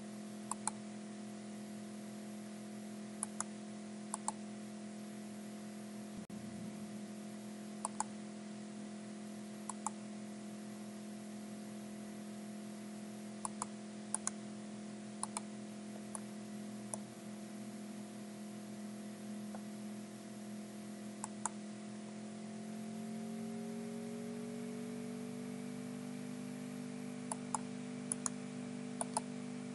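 Computer mouse clicks, single ones every few seconds and then a quick run of several near the end. Under them is a steady hum of several tones that shifts slightly up in pitch about two-thirds of the way through.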